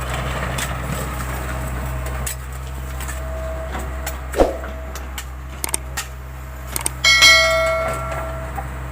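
A steady low engine hum, with scattered knocks and clicks, and a loud metallic strike about seven seconds in that rings on for about a second.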